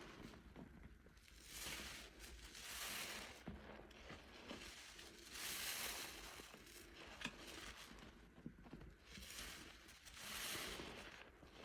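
Thick soap foam squeezed out of a lathered sponge: a wet, crackling squish that swells three times, with small pops and crackles between the squeezes.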